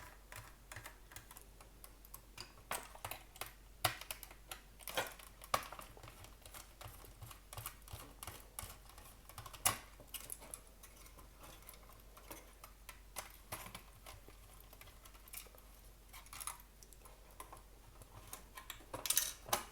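Scattered light clicks and taps of small plastic and metal parts being handled while a circuit board is worked loose inside a Cisco Meraki MR46 access point, with a quicker, louder run of clicks near the end.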